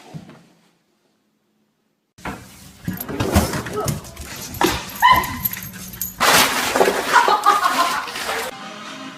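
A dog barking and whining in short, irregular calls, starting after about two seconds of silence. Music comes in near the end.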